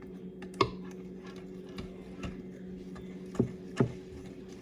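A few light knocks: one about half a second in and two close together near the end, over a steady low hum.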